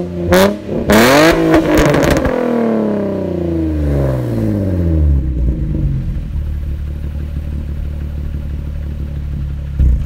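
Infiniti G35's 3.5-litre V6, with test pipes in place of the catalytic converters on the stock exhaust, blipped hard a few times near the start with a raspy exhaust note. The revs then fall slowly back over about four seconds and it settles to a steady idle.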